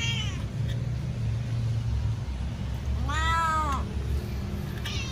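Domestic cat meowing to be fed: a short meow right at the start, one long meow that rises and then falls about three seconds in, and another beginning at the very end. A steady low hum runs underneath.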